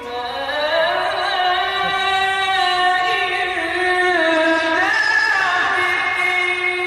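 A man's voice chanting melodically into a microphone, holding long notes that slide up and down in pitch, in the style of Quranic recitation.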